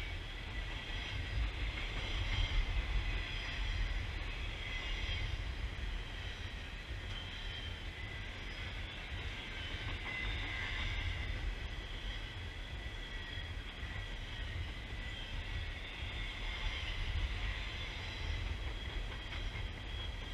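Double-stack container freight cars rolling past close by: a steady low rumble of wheels on rail, with a high-pitched wheel squeal that swells and fades.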